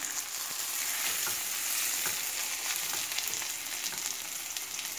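Sesame-crusted tuna steak sizzling steadily as it sears in a hot nonstick frying pan, with a few light clicks and scrapes of a plastic spatula turning it onto its sides.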